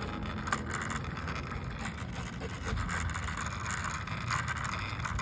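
Longboard wheels rolling over asphalt, a steady rough rumble with some scraping noise on top.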